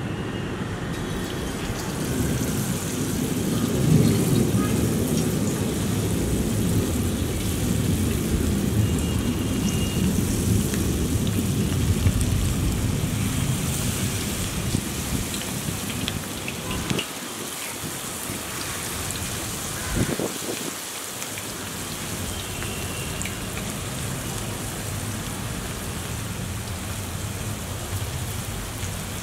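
Batter-coated cauliflower florets deep-frying in hot oil, a steady rain-like sizzle and bubbling as more pieces are dropped in. A low rumble runs beneath it, heaviest in the first half.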